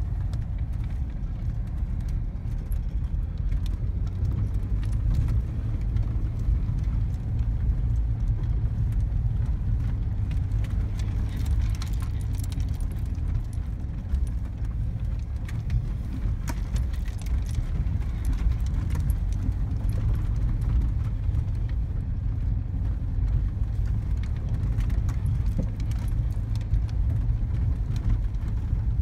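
Volkswagen Type 2 bus heard from inside the cab, driving over a rough dirt track: a steady low rumble of engine and tyres, with scattered rattles and knocks from the body over the bumps.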